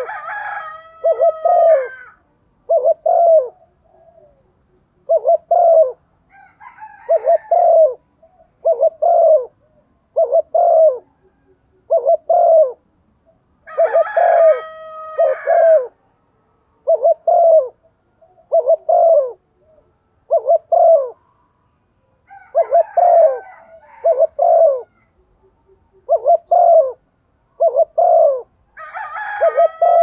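Caged female spotted dove cooing in short low notes, mostly in pairs, about one a second, a call used to draw in male doves. About five times a longer, higher call with several pitches sounds over the cooing.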